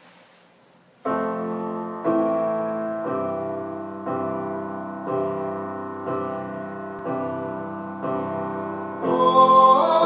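Piano chords played slowly, starting about a second in, a new chord struck about once a second and left to ring. Near the end a voice begins singing over the chords.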